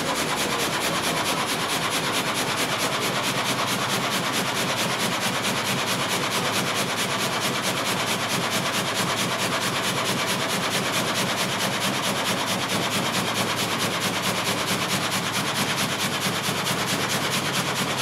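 Frame sawmill (gang saw) running and sawing a log: the reciprocating frame of blades cutting through the wood with a steady, even, fast pulse of strokes.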